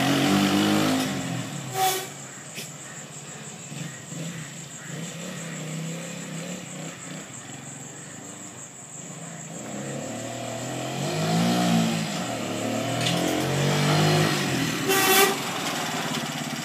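Small 150cc Chinese single-cylinder motorcycle engine on a sidecar rig, pulling away and fading into the distance, then growing louder again as it rides back, its pitch rising and falling with the throttle. A brief sharp noise comes about a second and a half before the end.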